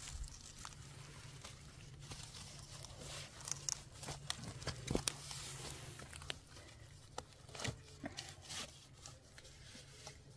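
Rope rustling and scraping as it is drawn around a bundle of dry firewood sticks, with scattered small clicks of wood knocking against wood.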